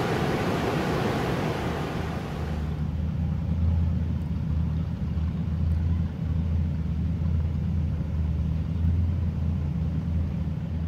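Water rushing and churning in a canal lock chamber, which stops abruptly about two and a half seconds in. Under it, and on afterwards, a steady low engine hum.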